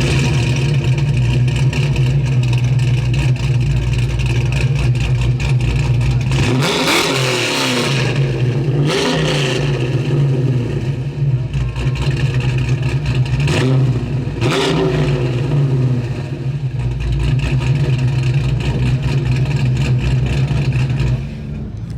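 The 1965 Oldsmobile 442's 400 cubic inch V8 running with a steady low drone, revved several times so that its pitch climbs and falls back.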